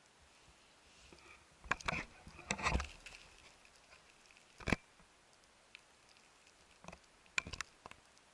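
Green mesh fishing keepnet holding caught fish being handled: scattered rustles and knocks in a few short clusters, around two seconds in, one sharp knock near five seconds, and a quick cluster near the end.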